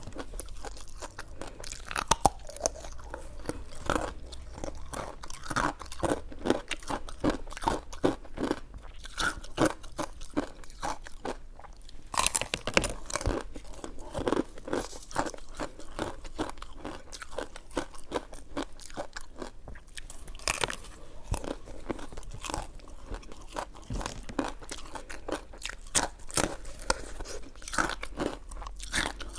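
A person chewing a soft, sticky coconut rice dessert close to the microphone: a continuous run of short wet clicks and mouth smacks.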